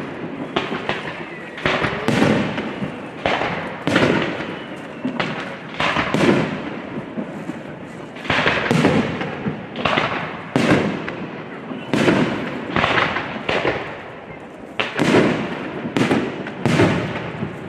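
Aerial fireworks exploding in quick succession, a sharp bang every second or so, each followed by an echoing, crackling tail.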